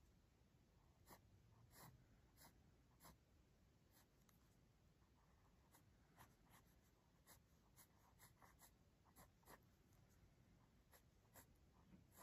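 Pentel EnerGize mechanical pencil sketching on paper: faint, short strokes of graphite lead at an irregular pace, sometimes several a second.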